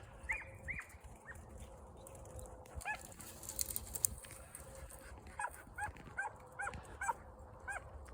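Hunting dogs barking faintly in short, high yips: a few near the start, then a steady run of about two to three a second through the second half, the dogs giving tongue on a rabbit's scent.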